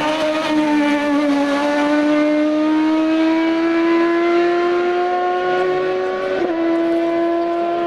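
Hill-climb race car's engine pulling hard under load, its pitch rising slowly, with a quick gear change about six and a half seconds in, after which it pulls on at a slightly lower pitch.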